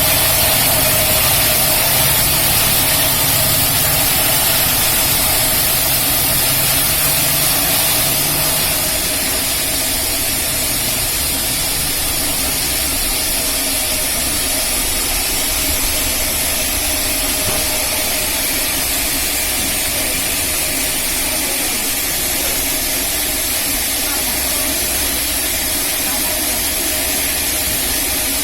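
Rail-mounted band sawmill running on a large teak log: a steady mechanical drone with a high hiss and a steady mid-pitched tone, a little louder for the first eight seconds or so.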